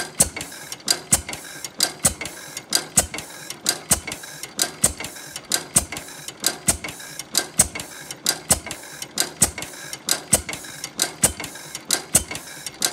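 10 hp Canadian Fairbanks Morse stationary engine running, a steady mechanical clatter of sharp clicks at about three a second.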